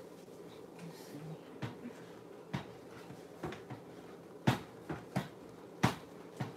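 Metal wire whisk stirring thick brownie batter, knocking against the side of the mixing bowl in irregular clicks, the two loudest about four and a half and six seconds in.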